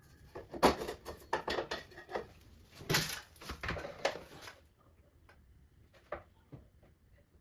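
A run of light knocks and clatters, like things being handled and set down, about a dozen in the first four and a half seconds, then a few faint ticks.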